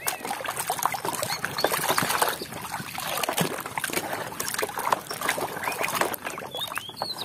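Muddy water sloshing and splashing in a plastic tub as a hand scrubs a plastic toy under water, with irregular small splashes and drips.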